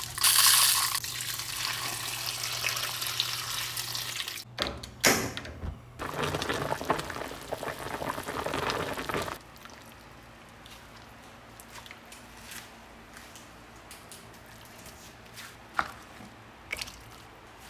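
Water pouring and splashing into a steel wok over pork belly, with a short break partway through, stopping about nine seconds in. Afterwards low room noise with a few light clicks.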